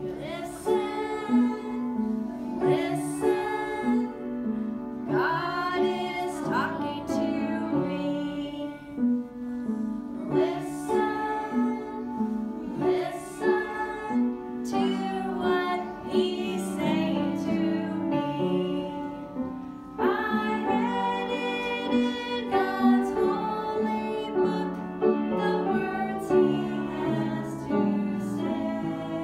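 Music: a woman singing a song over instrumental accompaniment.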